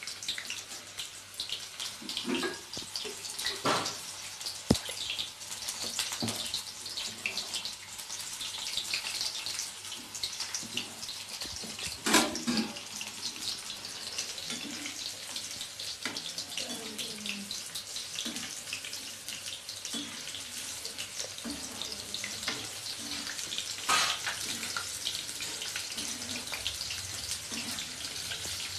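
Batter-coated soya chunks (meal maker) deep-frying in hot oil in a kadai: a steady sizzle with a few sharper pops and crackles scattered through it.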